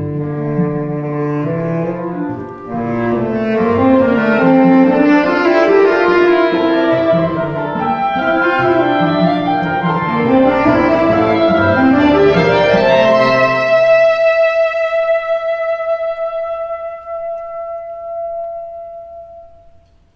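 Tenor saxophone and chamber ensemble of strings and winds playing a contemporary concert piece, a busy passage of many moving lines. About two-thirds of the way in, the ensemble drops away, leaving one high held note that slowly fades out.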